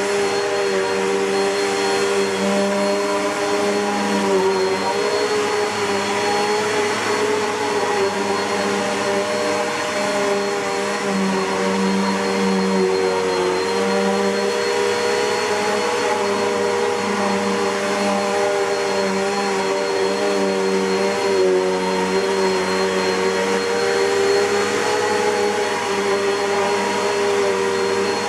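2010 Bissell PowerForce (71Y7) bagged upright vacuum cleaner, a Midea-built machine, running steadily with its motor whine and a thin high tone held throughout.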